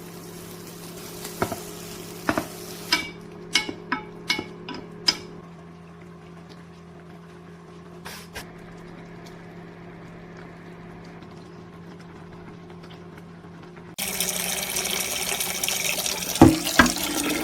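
A run of about nine sharp, ringing clinks of cookware being handled, then a kitchen tap turned on suddenly about 14 s in, water running loudly, with two sharp knocks near the end. A steady low hum lies underneath.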